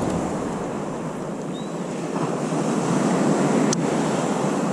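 Surf breaking and washing up the beach, with wind on the microphone; the wash swells and ebbs, and a single sharp click sounds about three-quarters of the way through.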